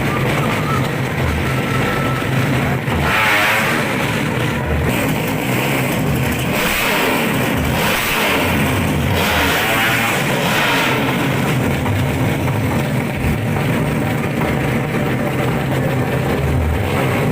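Drag racing engines revving hard and accelerating, loud throughout, with several rising runs of engine pitch.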